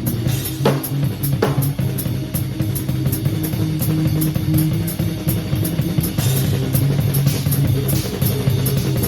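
A band plays an instrumental passage: a drum kit keeps a steady beat of quick hi-hat ticks, with kick and snare hits, over held bass guitar notes.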